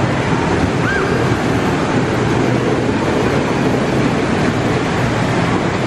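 Children's caterpillar train ride running along its track: a loud, steady rolling noise with no letup.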